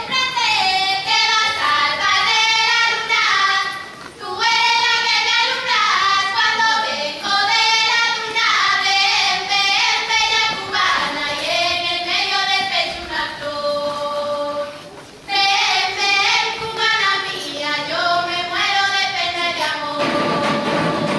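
A small group of young women singing a Galician ruada together in traditional style, several voices in close harmony, with two short breaks between phrases.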